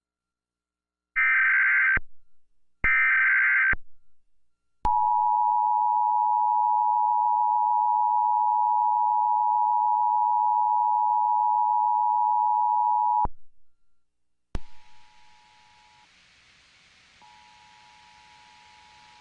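Emergency Alert System test signal: two short screeching bursts of SAME header data, then the EAS attention signal, a steady two-note tone held for about eight seconds that cuts off. After a click, the same two-note tone comes back faintly under a hiss and breaks off briefly.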